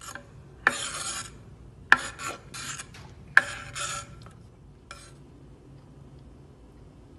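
Knife blade scraping across a wooden cutting board, pushing chopped hard-boiled egg into a bowl. A run of short scrapes in the first four seconds or so, three of them starting with a sharp knock, then one brief scrape.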